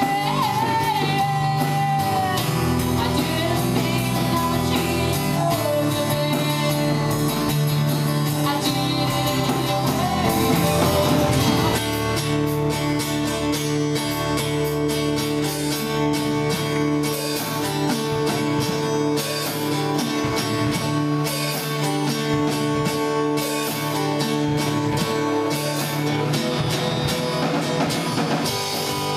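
Live acoustic rock performance: a woman singing over a strummed acoustic guitar and a drum kit. The singing gives way to an instrumental passage of guitar and drums about twelve seconds in.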